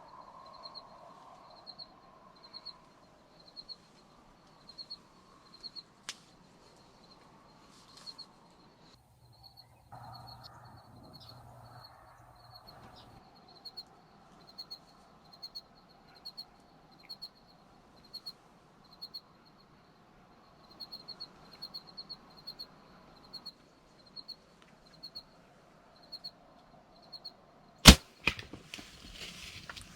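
A bow shot near the end: one loud, sharp snap of the bowstring, with a second, quieter knock about half a second later. Before it, a short high chirp repeats every second or so over faint outdoor background.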